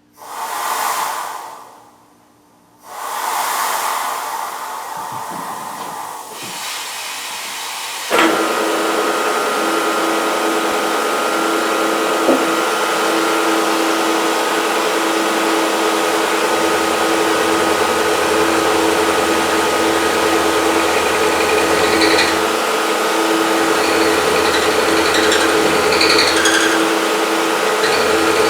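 Compressed-air blast hissing in two bursts. About eight seconds in, the milling machine starts and runs with a steady whine of several fixed tones while the air keeps going.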